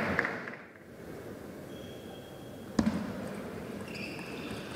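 A table tennis ball struck once, a sharp click about three seconds in, then a few faint ticks near the end as the rally gets going, with the quiet hum of the hall between.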